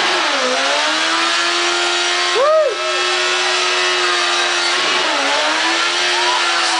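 Motorcycle engine held at high revs during a burnout, its pitch steady but dipping briefly near the start and again about five seconds in, with two quick throttle blips about two and a half seconds in.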